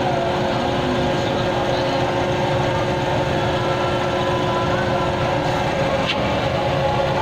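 An engine running steadily at a constant speed, with a steady hum and no hammer blows.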